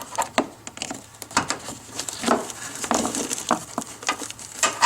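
Irregular clicks, taps and light rattles of hard plastic and metal parts being handled: an LED headlight bulb being worked into a pickup's headlight housing.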